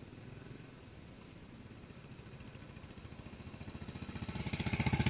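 Motorcycle engine running with a fast, even exhaust beat, growing steadily louder over the last couple of seconds.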